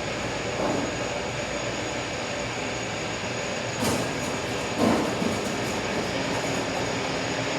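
Delta elevator hoist machinery running steadily as one car travels down, with a thin high steady whine over the drone. A few short clunks, the loudest about four and five seconds in.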